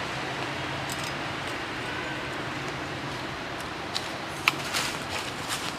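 Steady outdoor background hiss with a faint low hum, broken near the end by a few short sharp clicks and one brief high chirp.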